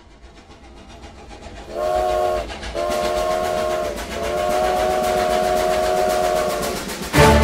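Steam train chugging, growing louder, then its multi-note whistle blowing three times, the third blast the longest. Music comes in right at the end.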